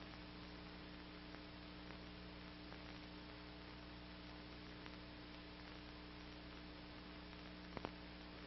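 Near silence: the steady low hum and hiss of an old film soundtrack, with a few faint clicks, two close together near the end.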